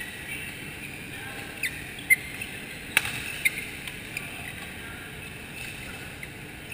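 Badminton doubles rally: a few sharp racket strikes on the shuttlecock, the loudest about two seconds in. Brief high squeaks of shoes on the court floor sit over the steady background of a busy hall.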